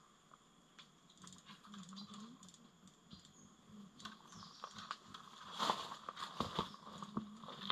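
Light clicking and rustling of fishing line and gear being handled, then louder crunching footsteps on dry leaf litter near the end, over a steady high drone of insects.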